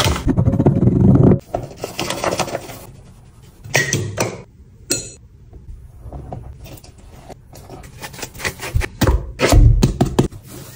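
Kitchen food-preparation sounds: irregular clinks, knocks and scrapes of utensils and dishes, with a few louder thumps.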